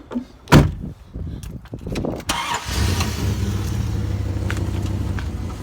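A single loud thump, then the 2001 Dodge Durango's 5.9-litre Magnum V8 starts about two seconds later and settles into a steady idle.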